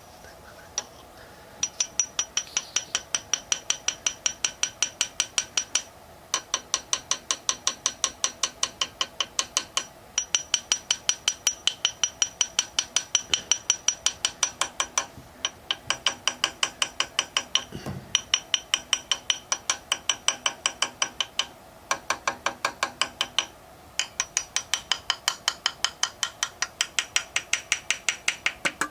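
Rapid, even metallic tapping on a VAZ 2109 engine part, about four strikes a second, in runs of a few seconds with short pauses. Each strike rings, and the knocks are made on purpose to imitate engine knocking.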